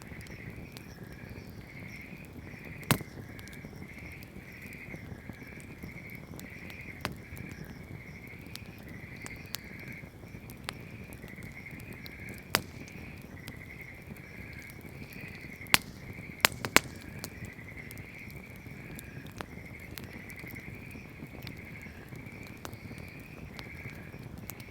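Wood fire burning with a low steady rush and occasional sharp crackling pops, the loudest about 3, 12 and 16 seconds in, three in quick succession near 16 seconds. A steady pulsing chirp runs underneath.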